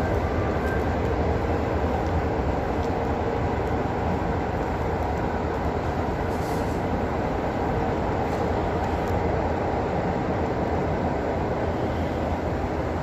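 Passenger train rolling slowly along a station platform, heard from an open carriage window: a steady low rumble of wheels on rail with a few faint clicks.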